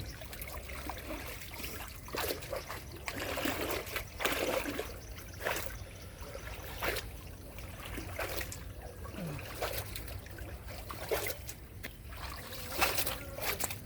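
Shallow water splashing and trickling in irregular bursts, as it is stirred by hand fishing with a bamboo trap.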